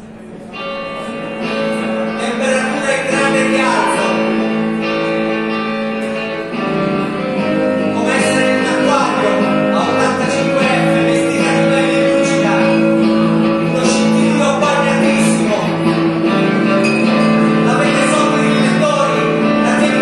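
Live band music with an electric guitar playing, coming in about half a second in.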